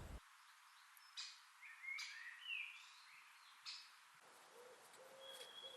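Faint springtime woodland birdsong: scattered short chirps and quick whistled notes from songbirds, with a few lower notes near the end.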